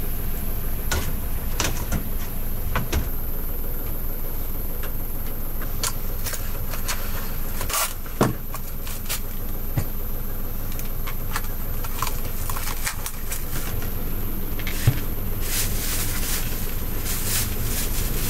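Takeout ramen being packed: light clicks and crinkles of plastic bowls and cling film, then a plastic carrier bag rustling near the end, over a steady low engine rumble.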